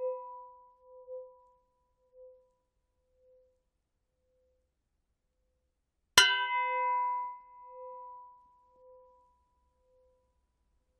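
Struck metal gong ringing out. A previous hit fades away in the first second or so, then a fresh sharp strike about six seconds in rings with a pulsing low tone and a clear higher tone, dying away over about four seconds.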